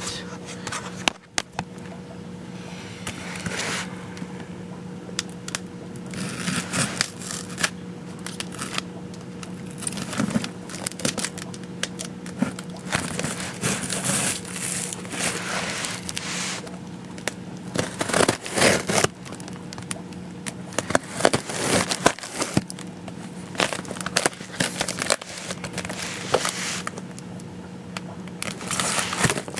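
A cardboard shipping box being opened by hand: packing tape cut and torn off, with crinkling and scraping of the cardboard in irregular bursts. A steady low hum runs underneath.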